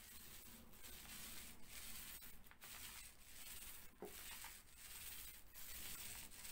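Mini paint roller rolled back and forth over plasterboard, a faint rubbing swish with each stroke as a second coat of paint goes on.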